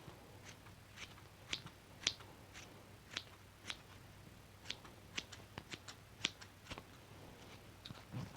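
Small red school scissors snipping, a run of short, sharp snips at an irregular quick pace, some two or three a second.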